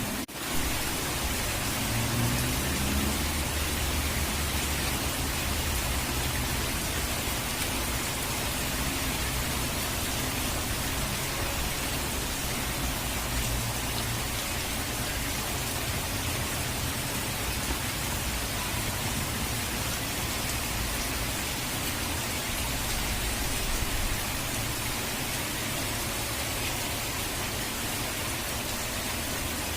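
Steady hiss of heavy rain and falling water, with a low rumble underneath. The sound drops out for a split second right at the start.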